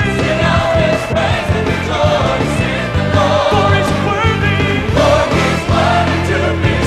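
Gospel choir singing with a full band, driving bass and drums: an upbeat praise song.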